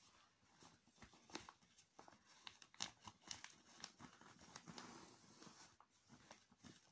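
Faint crinkling and crackling of a reusable bag-for-life shopping bag as hands pinch and fold it, in irregular sharp crackles and short rustles.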